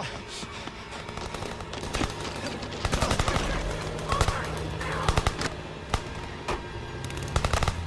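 Automatic gunfire in a street battle: rapid bursts of shots, densest about three seconds in, around five seconds and again near the end, over a low steady hum.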